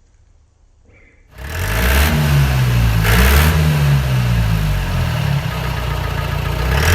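Jeep engine exhaust running and being revved several times, coming in suddenly about a second and a half in, its pitch rising and falling with each rev.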